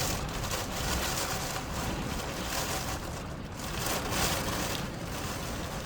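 Wind and rain of a hurricane rain band blowing past, the wind swelling and easing in gusts.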